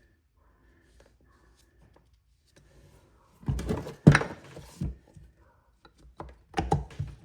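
A short hiss of WD-40 aerosol spray on the differential parts about halfway through, with a sharp click. Then a few light metal clunks as a part is handled and slid into place.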